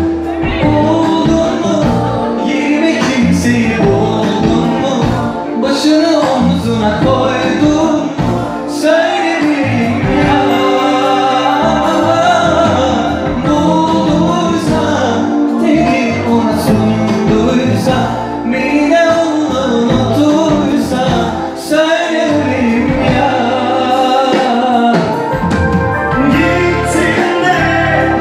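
Live Turkish pop song: male voices singing over a live band that includes electric guitar.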